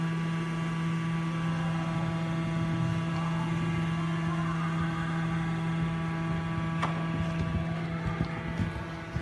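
A steady droning hum, one low tone with many higher tones stacked above it, unchanging throughout. Near the end a few soft thumps and a knock come through as a horse canters close past on arena sand.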